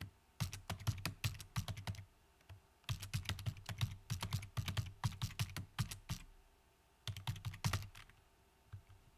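Computer keyboard typing in three bursts of quick keystrokes, with short pauses between them.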